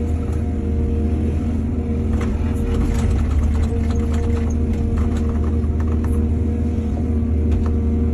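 Diesel excavator engine running steadily under load, with scattered clanks and rattles through the middle.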